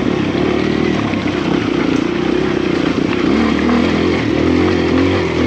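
Kawasaki KLX140RF dirt bike's single-cylinder four-stroke engine running at low revs while climbing loose rocks. Its note rises and dips repeatedly as the throttle is worked.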